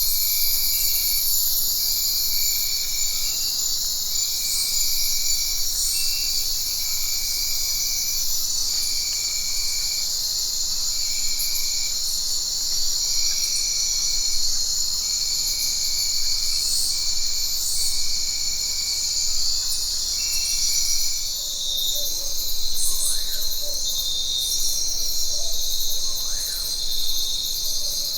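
Jungle ambience dominated by a dense, steady chorus of insects, with a repeated short call about once a second over it. About three-quarters of the way through the ambience shifts: the repeated call stops and a few short rising calls come through.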